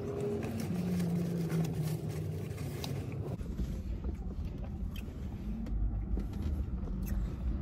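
A man hums a low, held 'mmm' while chewing a crispy fried egg roll, with faint crunching clicks. From about three seconds in, a low rumble of passing traffic rises underneath.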